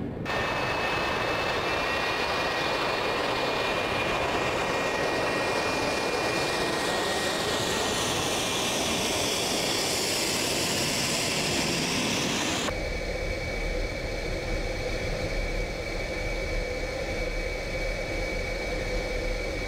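F-4 Phantom II's twin J79 turbojets running loud with a steady high whine and rush, sweeping with a swirling, phasing sound as the jet taxis past close by. About two-thirds of the way in the sound cuts to a deeper, steadier engine rumble heard from inside the open cockpit.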